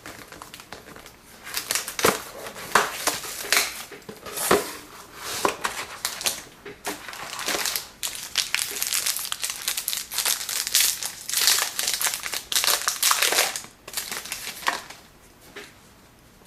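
Wrapping on a sealed box of hockey trading cards crinkling, crumpling and tearing as it is opened by hand, in a long series of irregular rustles and rips.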